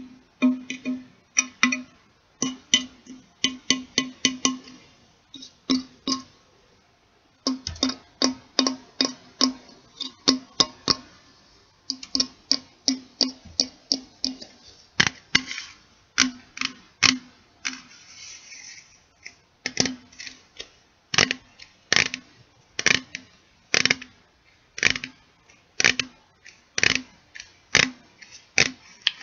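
A metal can being tapped with the fingers, each tap giving a short ringing ping at the same pitch. The taps come irregularly, sometimes in quick runs of about four or five a second, with a brief soft rustling patch about two-thirds of the way through.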